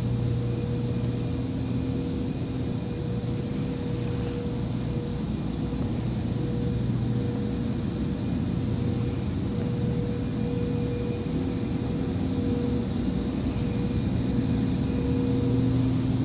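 Steady low mechanical hum with a few constant tones over an even background noise, unchanging throughout.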